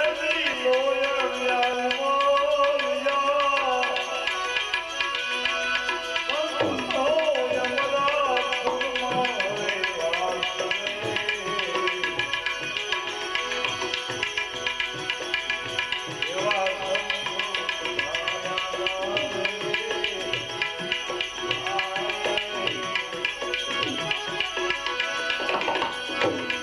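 Bhajan music: a tabla plays a steady, fast rhythm under steady held tones and a melody that rises and falls.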